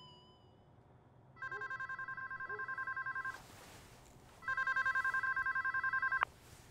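A telephone ringing with an electronic warbling trill: two rings of about two seconds each, the second cut off suddenly as the phone is answered.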